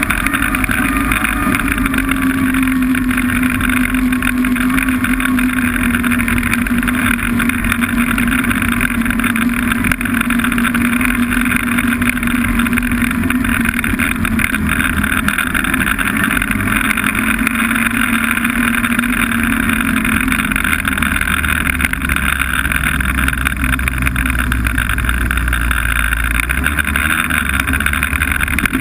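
Snowmobile engine running steadily under way, its note sinking slowly over the first twenty seconds and then fading, over a constant rush of noise.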